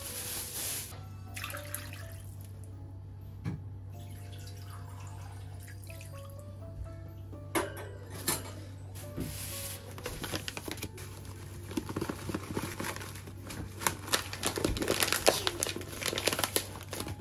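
Soft background music over kitchen sounds: a few clicks, then water running from a tap into a sink, splashing and loudest near the end.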